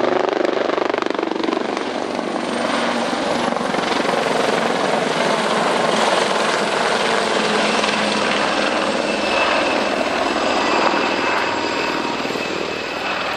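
Westland Wildcat helicopters flying a display pass overhead: loud, steady rotor noise with a high turbine whine from the turboshaft engines.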